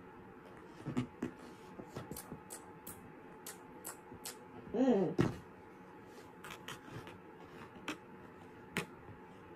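Light clicks and taps of small plastic toy erasers and their clear boxes being handled, scattered irregularly. About five seconds in, a short hummed voice sound rises and falls in pitch.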